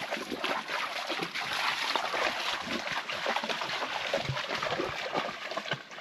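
Water splashing and trickling, a dense irregular spatter.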